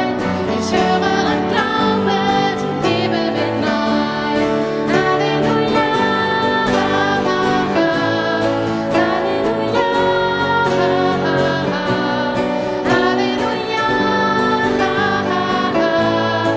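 Live worship song in German sung by female voices into microphones, accompanied by acoustic guitar and grand piano. Partway through, the verse gives way to a chorus of repeated "Halleluja".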